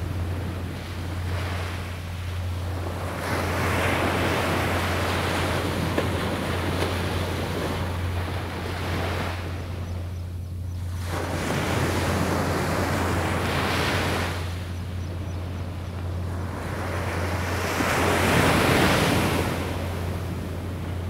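Small ocean surf breaking and washing up a beach in three surges a few seconds apart, over a steady low hum.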